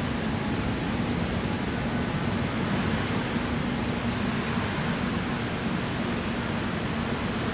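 Steady city street ambience: an even wash of noise with a low hum underneath.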